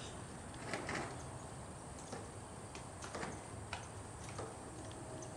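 Hoofbeats of a horse trotting under a rider on a sand arena footing: soft thuds at uneven intervals, about one every half second to a second, over a steady hiss.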